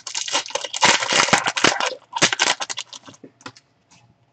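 Crinkling and tearing of a plastic trading-card pack wrapper being opened by hand. It is loudest and densest for the first two seconds, then comes in a few shorter crinkles that fade out.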